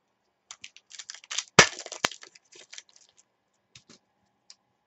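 Trading cards being handled by hand: a run of crackly rustling and clicking of card stock for a couple of seconds, with a loud knock about one and a half seconds in and a sharp click just after. A few light clicks follow near the end.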